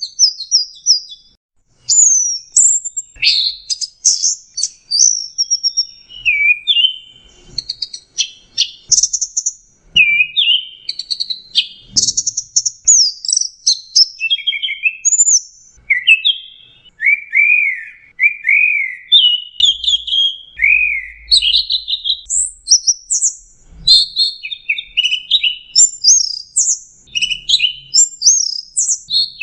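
Orange-headed thrush (anis merah) singing a long run of quick, varied whistled phrases, many sliding up or down in pitch, one phrase close behind the next.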